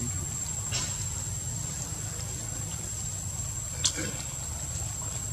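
Outdoor background sound: a steady low rumble and a thin, steady high-pitched whine, broken by two short clicks, the louder one about four seconds in.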